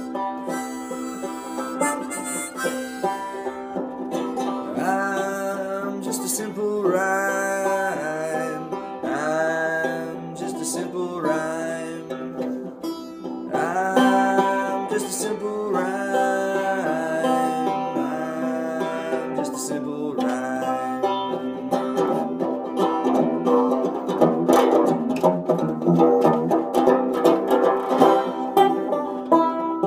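Six-string banjo strummed in a folk tune, with a harmonica in a neck rack playing held, wavering melody notes over it. Near the end the harmonica drops back and the banjo strumming gets louder and busier.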